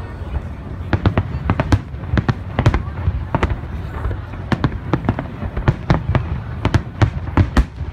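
Aerial firework shells bursting in rapid succession: sharp, irregular bangs, several a second, over a continuous low rumble.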